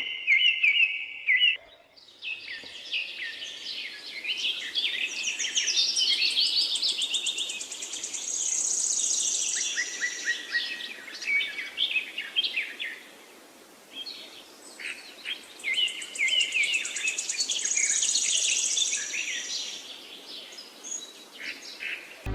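Songbirds singing and chirping in a busy chorus of short calls and fast trills, coming in two waves over a faint steady hiss.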